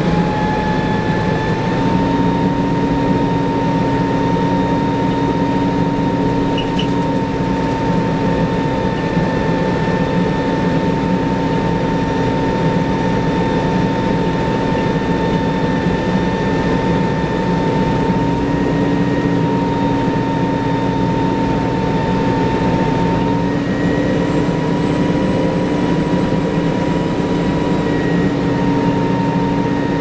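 1994 TMC RTS transit bus under way, heard from inside the passenger cabin: its Detroit Diesel Series 50 engine and Allison VR-731 transmission run steadily with a steady whine, which steps up slightly in pitch about two seconds in and again later. The transmission's lock-up is not engaging.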